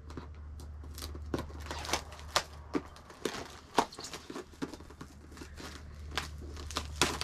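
A paperboard product box being handled and opened by hand: irregular rustling, scraping and sharp clicks of the packaging, over a low steady hum.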